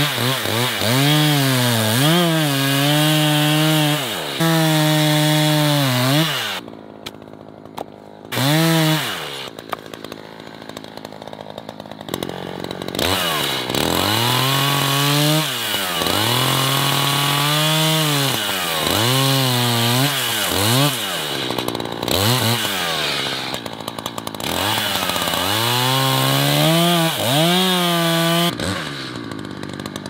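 Two-stroke chainsaw cutting into a standing pine trunk to fell it, the engine rising and sagging in pitch over and over as the chain bites. About a third of the way in it drops to idle for several seconds with one short rev, then goes back to full-throttle cutting.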